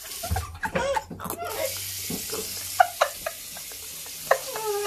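Bathroom sink faucet running steadily into the basin, with a child's short vocal sounds and a few small clicks over it.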